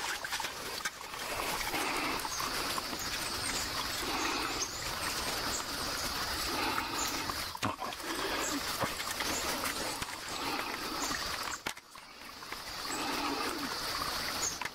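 Shallow stream water running steadily, with a low animal-like call repeating every second or two and faint bird chirps.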